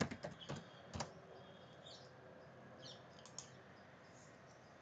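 Computer keyboard keystrokes and mouse clicks: a quick cluster of taps in the first second and one more click about a second in, as a short command is typed.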